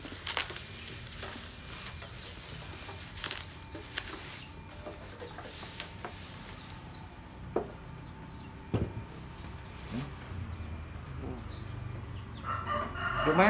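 Plastic bubble wrap crinkling and rustling with scattered sharp crackles as it is pulled off a boxed machine. A small bird chirps over it, a run of short falling notes about once or twice a second through the middle.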